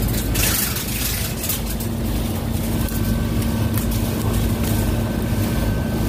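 Outdoor HVAC condensing units running with a steady low hum of compressors and condenser fans, a steady tone joining about a second in. The technician suspects they are running at extremely high head pressure because their micro-channel condenser coils are blanketed with debris. Brush and dry leaves rustle briefly a few times underfoot.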